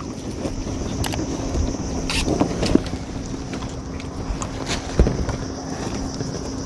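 Wind buffeting the microphone over open water, with a faint steady low hum. A few sharp clicks and knocks of fishing tackle being handled close to the microphone, the loudest about five seconds in.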